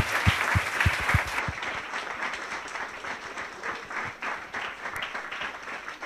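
Audience applauding. A few loud close handclaps come at first, then the applause thins out after about a second and a half into scattered claps that die away.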